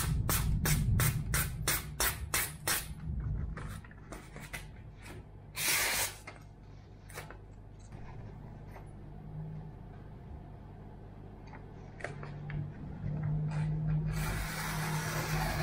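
Kitchen knife slicing through paper in a sharpness test: a quick run of crisp snips through a card sheet in the first few seconds, a single hissing slice about six seconds in, then a longer hissing slice through a glossy magazine page near the end.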